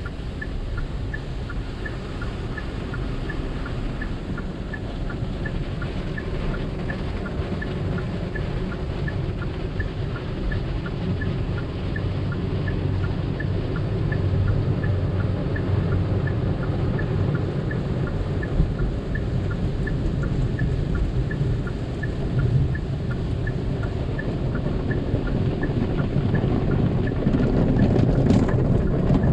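Automatic tunnel car wash equipment heard from inside the car: a steady rumbling wash noise with a light, even tick about twice a second, growing louder near the end.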